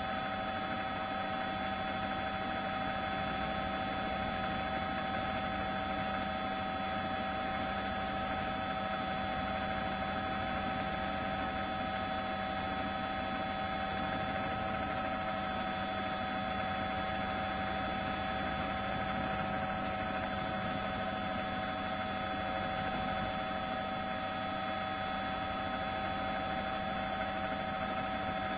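Steady drone of a helicopter in flight, heard from on board: an even hiss with several fixed whining tones, unchanging throughout.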